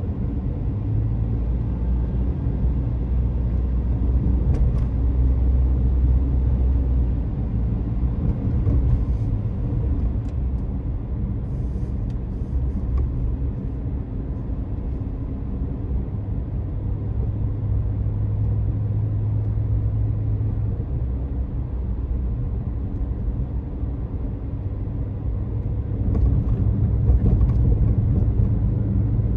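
Car road noise heard from inside the cabin while driving: a steady low rumble of engine and tyres, swelling slightly near the end.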